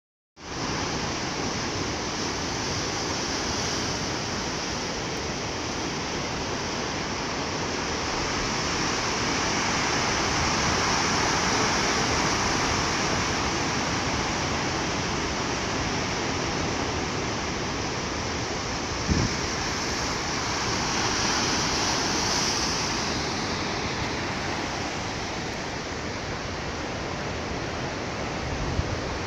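Ocean surf breaking on a rocky shore: a continuous rush of waves that swells and eases slowly, with a brief knock about nineteen seconds in.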